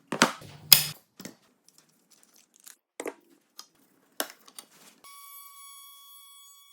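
Several sharp knocks and clicks of a Festool OSC 18 cordless oscillating multi-tool being handled against the work, the loudest about three-quarters of a second in. About five seconds in, a steady, quiet, high-pitched whine with overtones starts and holds.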